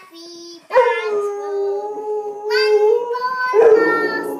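Rottweiler howling in a long, slowly falling held note, with a young girl singing along over it in the second half.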